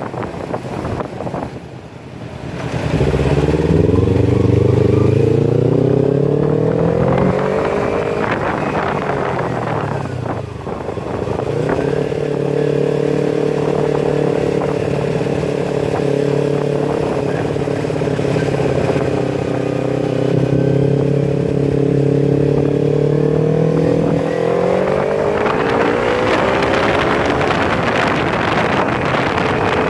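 Kawasaki Ninja 250FI parallel-twin engine breathing through a Scorpion full-system exhaust with its dB killer removed, ridden under way. The revs climb for several seconds, fall away about ten seconds in, hold steady for a long stretch, then climb again near the end.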